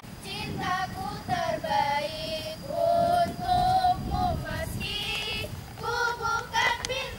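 High young female voices singing loudly, holding and bending notes in a short tune, over a low rumble.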